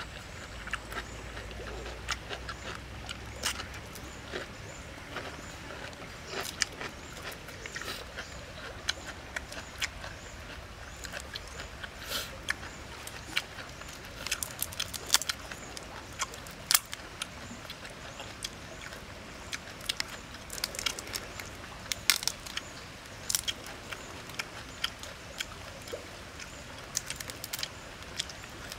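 Grilled prawns being peeled by hand: irregular sharp crackles and snaps of the shells breaking, over a steady background hiss.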